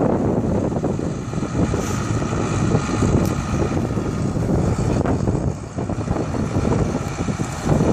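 2002 Buhler Versatile 2180 Genesis tractor's diesel engine running steadily as the tractor drives and turns.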